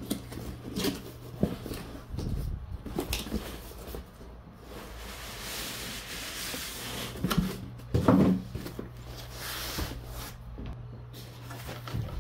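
Cardboard box being opened and unpacked by hand: cardboard sliding and scraping, foam packing rubbing, and scattered light knocks on the bench, with a longer rustling slide in the middle. A steady low hum runs underneath.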